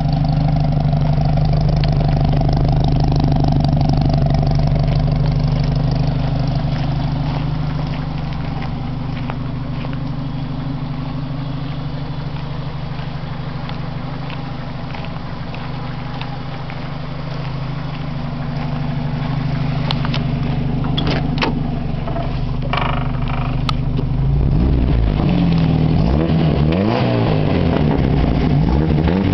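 1989 Jeep Wrangler YJ's 2.5-litre four-cylinder engine idling steadily, sounding out through a glass-pack exhaust with no catalytic converters. A few knocks come about three-quarters of the way through, and near the end the revs rise and fall several times.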